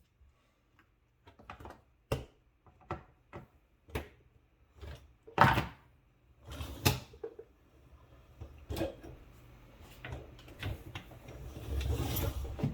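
Scattered clicks and knocks of hard plastic parts being handled as a dishwasher's filter assembly is unscrewed and lifted out of the sump, with a rising scraping rustle near the end.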